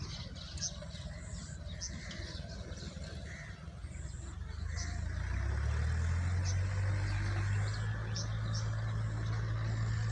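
Birds chirping in short, scattered calls. About halfway through, a low steady hum comes in and grows louder.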